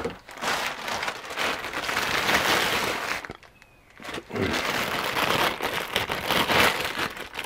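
Clear plastic packaging bag crinkling and rustling as a folded light-stand tripod is pulled from it and unwrapped. The rustling comes in two long stretches with a short pause a little past the middle.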